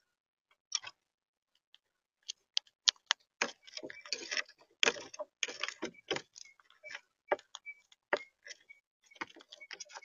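Monk parakeets feeding right at a seed tray: an irregular run of sharp clicks, cracks and rattles from beaks picking through and cracking seed. It starts sparse and is densest in the middle.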